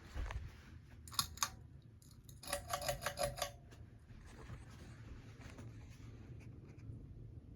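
Low steady hum of a ceiling fan motor, broken by a thump near the start, two sharp clicks a second later, and a quick rattling run of clicks lasting about a second.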